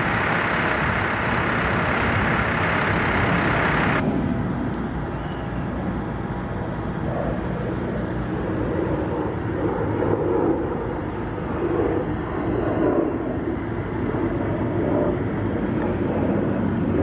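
Heavy diesel engine running steadily under an even rumble of noise. About four seconds in the sound turns abruptly duller, and uneven swells in the engine note come and go after that.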